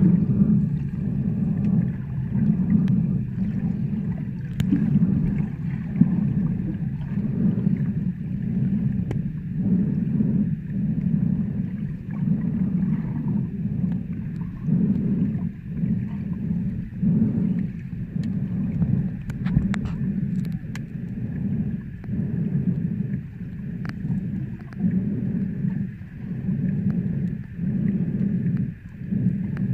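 Muffled underwater rumble of water moving around a submerged camera, swelling and fading about once a second, with a few faint clicks.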